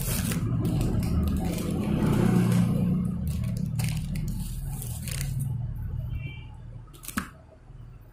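Plastic packaging rustling and crinkling as a necklace set is unwrapped and handled close to the microphone, with a low rumble of handling. A single sharp click comes about seven seconds in.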